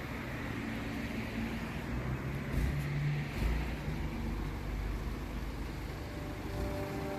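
Street noise of car engines and traffic, a steady low hum with a faint low engine drone. Background music fades in near the end.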